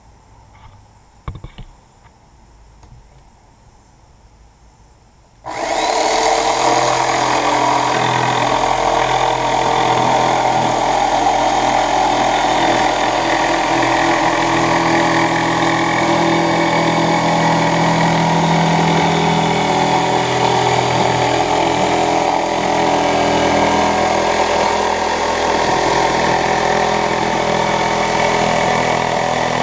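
Two small clicks, then a power saw starts suddenly about five seconds in and runs steadily while cutting through a sheet of white wall board.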